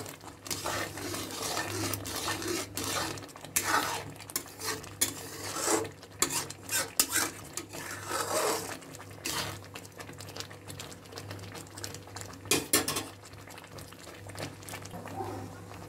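A steel spatula scraping and knocking against a metal kadai as thick, bubbling rava kesari (semolina halwa) is stirred. The strokes are irregular and fall mostly in the first half, with a couple more about two-thirds of the way in.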